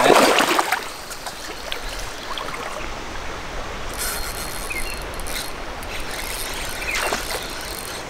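Water splashing at the creek's edge for about the first second, then the steady trickling run of a shallow creek.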